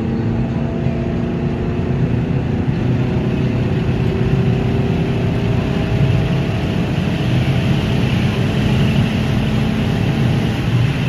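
A 2008 Chrysler PT Cruiser's four-cylinder engine and road noise, heard from inside the cabin while driving. The engine note climbs slowly and steadily.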